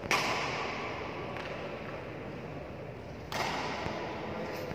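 Two sharp impacts, one at the very start and one about three seconds later, each echoing in a large hall over a steady background hum.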